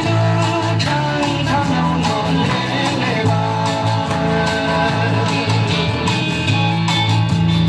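Guitar-led music with steady bass notes.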